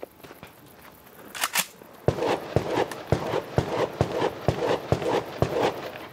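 Footsteps walking at an even pace, about two steps a second, starting about two seconds in, with a crunch to each step. A couple of sharp clicks come just before them.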